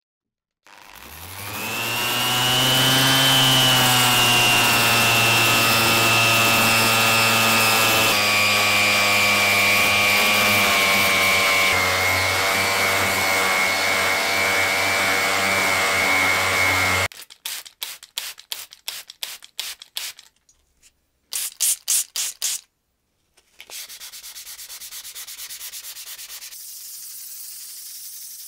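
A power sanding tool starts up, its motor tone rising for a couple of seconds and then running steadily while it sands, and cuts off abruptly about two-thirds of the way through. Then come a series of short rubbing strokes, a quick flurry of strokes, and a quieter steady rubbing to the end.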